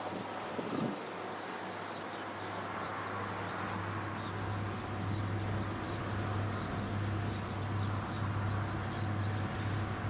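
Rice-harvesting machine's engine running with a steady low hum, under many short, high chirps.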